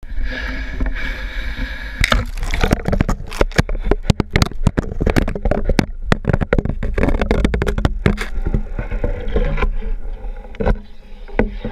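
An underwater camera being lowered down a hole drilled through the ice, its housing knocking and scraping against the ice walls with gurgling, sloshing water. A fast run of sharp clicks and knocks starts about two seconds in and eases off after about eight seconds, leaving quieter bubbling and water noise.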